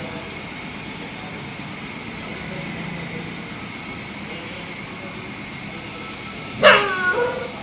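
A dog barks once near the end: a single loud bark that falls in pitch. It is barking at a fox it has seen. A steady background hiss runs underneath.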